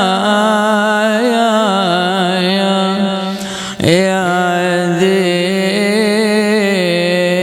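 A man chanting an Arabic elegy, unaccompanied, drawing one syllable out into long wavering melismatic notes, with a quick breath a little under four seconds in.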